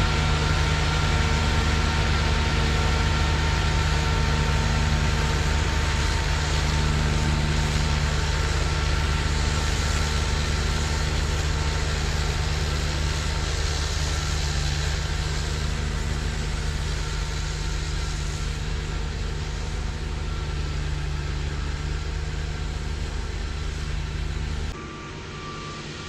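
Trackless MT6 tractor's engine and front-mounted snowblower running steadily while throwing snow, the sound slowly fading as the tractor moves off up the road. Near the end the blower noise drops off suddenly and a faint, regular reversing beep starts.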